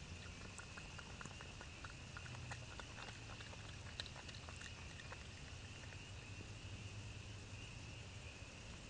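Faint small clicks and rustles from an opossum nosing in the grass right at the camera, mostly in the first five seconds, over a steady high chorus of night insects.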